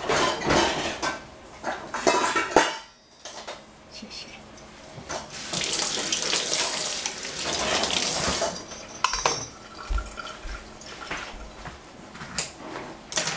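Dishes and metal utensils clattering in a stainless steel kitchen sink, with the tap running for a few seconds midway, then a few clinks as utensils are handled.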